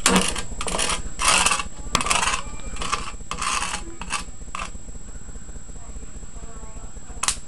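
Electric arcs crackling and snapping as a charged high-voltage capacitor bank of two 220 V 1000 µF capacitors is discharged through probes onto a circuit board's traces. There is a run of about eight short crackling bursts over the first four seconds or so, then a pause and one more sharp snap near the end.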